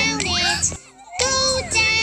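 Background music: a children's song with a child's singing voice, cutting out briefly about halfway through.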